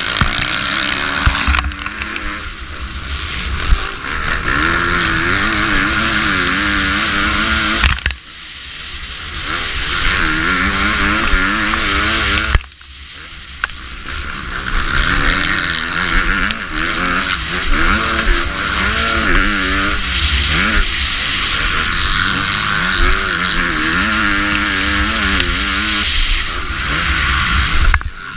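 450cc four-stroke motocross bike engine at race pace, heard up close on board, its revs climbing and falling as the rider works the throttle and gears. The throttle is chopped sharply twice, about eight and twelve and a half seconds in, and each time the engine builds back up.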